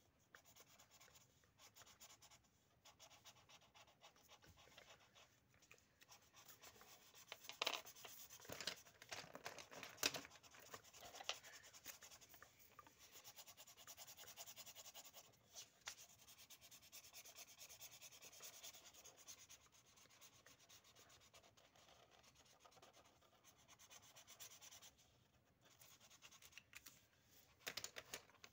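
Faint scratching and rubbing of felt-tip pens colouring on paper, with a few short louder taps and clicks; near the end, pens clicking in a plastic box as one is picked out.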